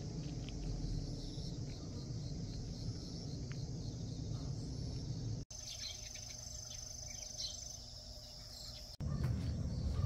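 Rural outdoor ambience: insects chirring steadily at a high pitch over a low rumble, with a few short chirps. The sound breaks off and changes abruptly twice, about five and a half and nine seconds in.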